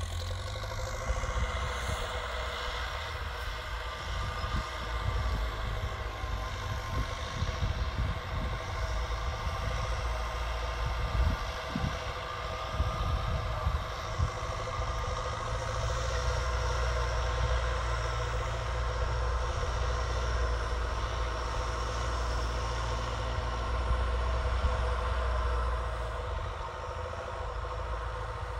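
Belarus MTZ 1025.4 tractor's turbocharged four-cylinder diesel running steadily through a straight-piped exhaust, with some knocking clatter in the first half and a little louder from about halfway.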